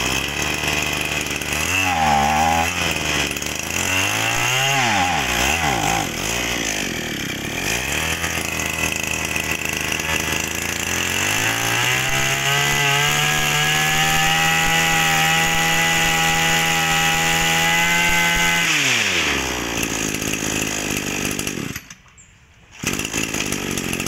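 Maruyama BIG M 23cc two-stroke brush cutter engine running. It is blipped up and down a few times, settles lower, then is held at high revs for about seven seconds before falling back. It drops out briefly near the end.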